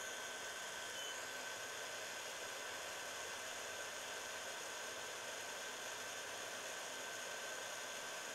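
Dental curing light running with a steady fan-like hiss and a faint thin high whine as it cures light-cured composite through a clear matrix.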